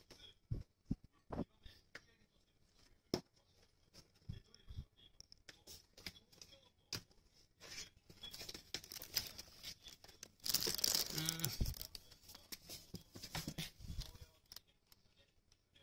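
Close handling noise from a cat pawing and rubbing against a handheld camera and pulling it down: scraping, rustling and tapping on the microphone, thickest and loudest about ten to twelve seconds in.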